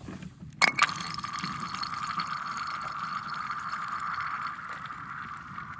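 Thin lake ice under a kayak: two sharp cracks, then a steady high-pitched ringing hum from the ice that lasts about five seconds and fades near the end.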